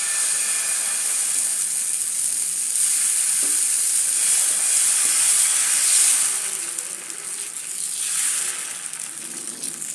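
Millet dosa batter sizzling on a hot dosa griddle as it is poured and spread: a loud, even hiss that starts suddenly and eases off about seven seconds in.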